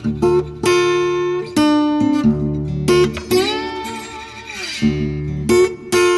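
Background music: plucked guitar notes and strums, each note ringing out and decaying.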